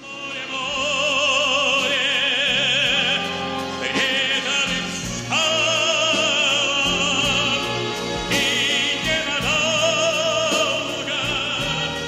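A song in an operatic style: a singer holds long notes with wide vibrato, moving to a new note every couple of seconds, over instrumental backing.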